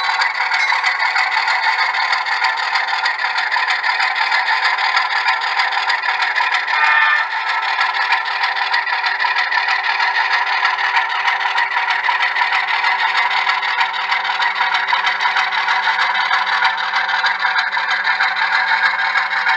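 Model railroad train running slowly past: a model Penn Central Alco RS-11 diesel locomotive pulling freight cars, giving a steady hum with a light clatter and rattle of wheels on the track.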